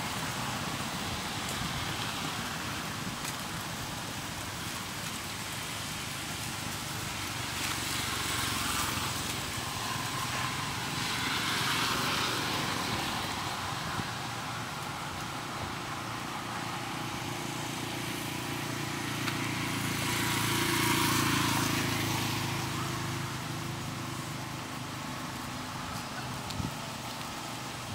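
Engine noise of passing motor vehicles, a steady low hum that swells and fades several times, loudest about twenty seconds in.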